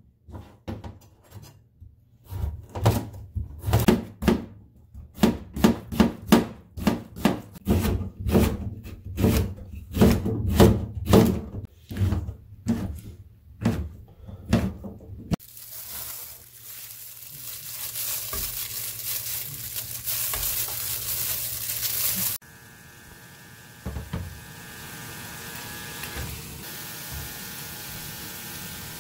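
Kitchen knife chopping vegetables on a cutting board in quick, regular strokes, about two to three a second. About halfway through, the chopping gives way to food sizzling in a hot pan. Near the end this settles into a quieter, steady sizzle with a faint hum.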